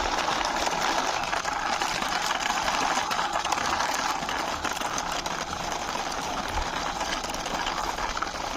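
Toy car being pushed along by hand, its wheels and gearing giving a steady whirring.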